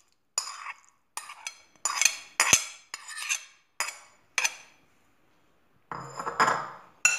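Metal spoon clinking and scraping against glass bowls as cooked Maggi noodles are scooped from one bowl into another: about ten quick clinks over the first four and a half seconds, then a softer, longer scrape near the end.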